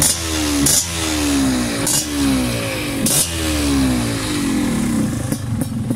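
Yamaha DT two-stroke dirt bike engine revved in four quick throttle blips through a quick-throttle grip, the revs falling away after each. It then drops back to idle near the end.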